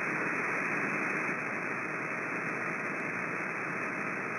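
CB radio receiver on channel 6 hissing with steady static between transmissions, the open channel carrying no voice.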